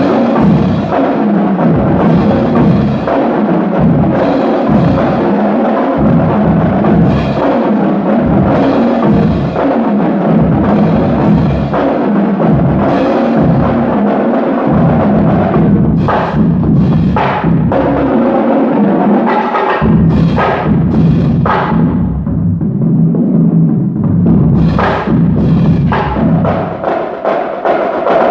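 High school drumline playing a loud percussion piece with many drums struck together. About halfway through, the playing breaks into sharp, separated accented hits with short gaps between them.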